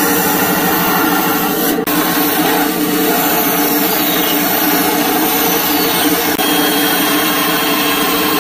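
Bandsaw running steadily, its narrow blade cutting through a hardwood block along a marked handle outline.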